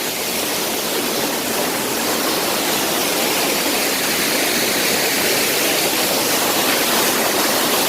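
Waterfall pouring steadily into its pool, a constant loud rush of falling water.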